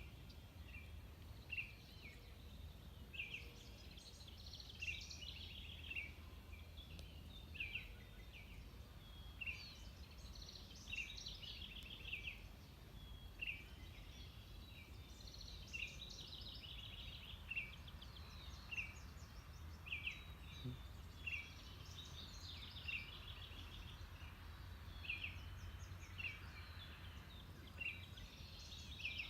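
Faint dawn chorus of songbirds: one bird repeats a short, sharp high note about once a second, while others trill and chatter over it, above a low steady rumble.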